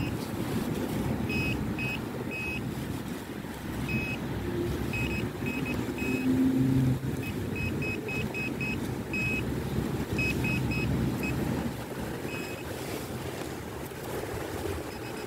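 Orange handheld metal-detecting pinpointer giving short, high electronic beeps in irregular clusters as it is probed through the hole and the dug soil, homing in on a buried metal target. A low rumble of wind on the microphone runs underneath and is the loudest part.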